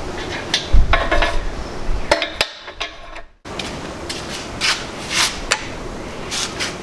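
Hand tools and metal engine parts clinking, knocking and scraping in irregular separate strikes, cut off by a moment of dead silence about two and a half seconds in.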